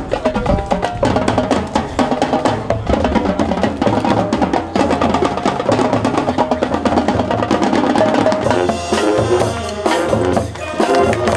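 High school marching band playing, with pitched instrumental parts over a drumline of snare and bass drums keeping a dense, driving beat. About eight seconds in the texture thins to more separate held notes.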